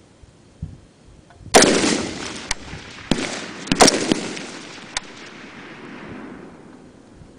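Rifle shots fired on semi-automatic from M16-pattern rifles: a loud shot about one and a half seconds in, then five more irregularly spaced over the next three and a half seconds, some of them fainter. Each shot trails a long echo that dies away.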